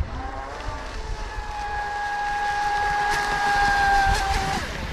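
Brushless electric motor (TP 4050 1700kv on 4S) of a 40-inch scale RC race boat whining at speed with the hiss of spray, growing louder as the boat comes close. The whine falls in pitch and stops a little after four seconds in.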